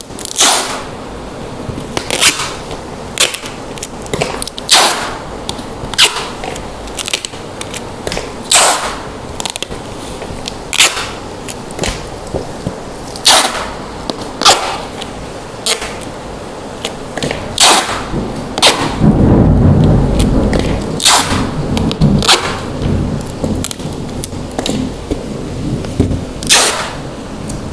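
Clear packing tape being pulled off its roll in about twenty short, sharp rips at uneven spacing, as a plastic-wrapped box is taped shut. About two-thirds of the way through there is a louder couple of seconds of low rumbling handling noise as the package is moved on the tile floor.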